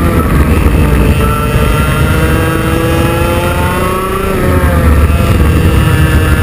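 IAME X30 Junior kart's 125cc two-stroke single-cylinder engine under hard throttle on track. Its note climbs steadily, dips briefly about four and a half seconds in as the kart turns into a corner, then climbs again.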